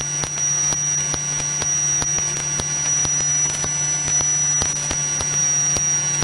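Steady drone of a light single-engine propeller plane in cruise, with a low hum, a thin high whine and frequent faint clicks over it.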